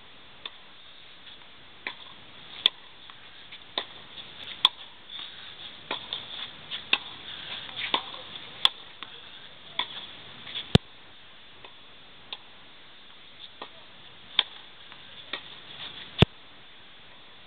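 Tennis ball hit back and forth with rackets in a rally on a clay court: sharp, hollow pocks of ball on strings, irregularly a second or a few seconds apart, with fainter knocks of bounces and scuffing between them over a steady hiss.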